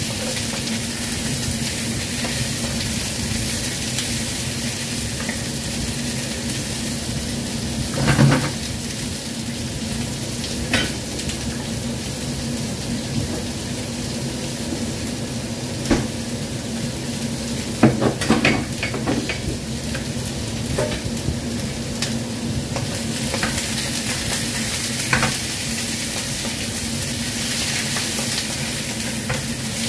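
Cucumber and carrot slices sizzling in a frying pan as they are stirred with a wooden spatula, under a steady low hum. A few short knocks and scrapes of the spatula against the pan stand out, the loudest a cluster about 18 seconds in.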